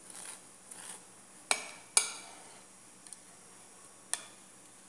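Metal knife and fork against a cut-glass cake plate as a slice of cake is cut and lifted out: soft scraping at first, then two sharp clinks about half a second apart, and a lighter clink near the end.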